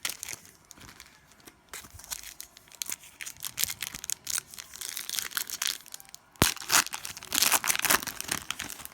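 Trading-card pack wrapper crinkling and cards being handled, a run of scattered crackles and clicks. About six and a half seconds in a sharp click is followed by the loudest, densest stretch of crinkling, as of a pack being torn open.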